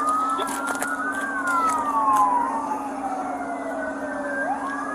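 Two or more emergency-vehicle sirens wailing at once, their tones sweeping slowly up and down and overlapping, over a steady low hum.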